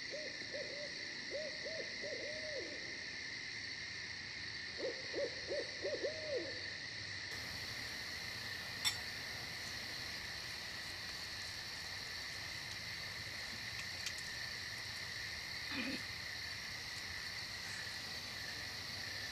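Night ambience: a steady, high insect drone from crickets, with two quick runs of short, repeated calls from a night bird in the first third. One sharp click about nine seconds in.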